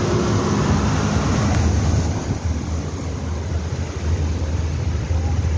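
Minibus engine running as it drives slowly through flowing floodwater, with water splashing and rushing around its wheels.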